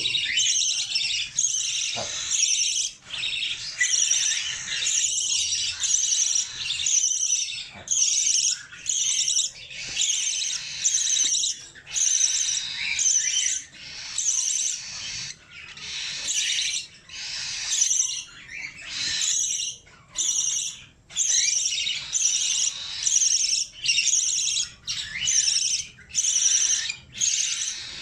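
Young budgerigar calling without pause: a rapid string of harsh, high chirps in short bursts with brief gaps between them.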